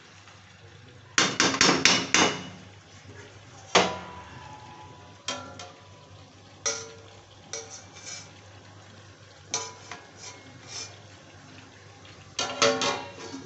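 Metal spatula scraping and knocking against an iron kadhai while chicken and sliced onions are stirred: clusters of quick metal-on-metal clatter separated by short pauses.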